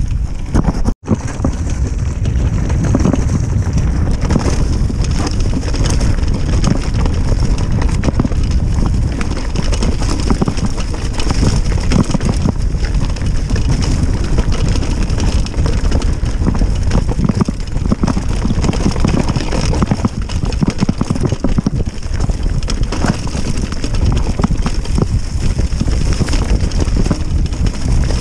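Mountain bike descending a downhill trail: wind rushing over the microphone, with a constant jumble of knocks and rattles from the bike over rough ground. The sound drops out briefly about a second in.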